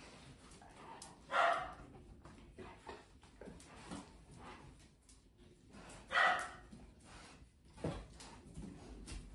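A dog gives two short barks, about a second and a half in and again about six seconds in, at a cat close in front of it. A soft knock follows near the end.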